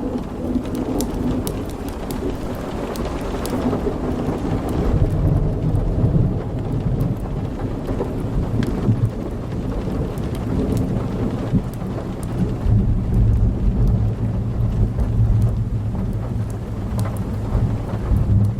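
Steady rain with rolling thunder, a low rumble that swells about a third of the way in and again past the middle. Scattered sharp crackles from a wood fire sound over it.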